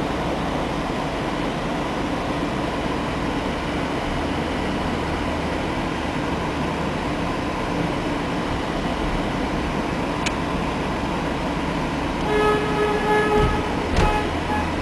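Steady road and engine noise heard from inside a car driving through a tunnel. Near the end a horn sounds in a few short toots, followed by a sharp knock.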